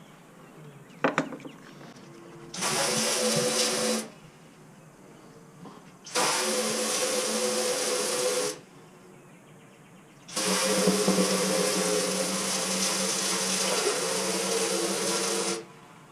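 An electric power tool run in three bursts, the longest last, each starting and stopping sharply, with a click about a second in.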